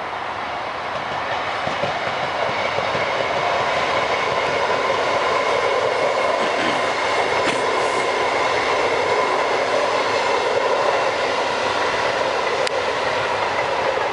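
Lastochka (Siemens Desiro RUS) electric multiple unit running past: a steady rush of wheels on the rails with a steady high-pitched tone over it, growing louder over the first few seconds and then holding as the train goes by.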